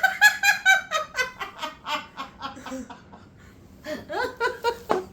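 Someone laughing hard: rapid runs of short, high-pitched ha-ha pulses, a brief lull about three seconds in, then more laughter near the end.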